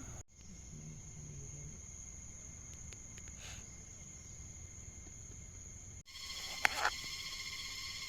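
Insects trilling in the forest in one steady high-pitched tone. Near the end the sound cuts to a different insect chorus of several steady tones, and a brief sharp sound follows shortly after the cut.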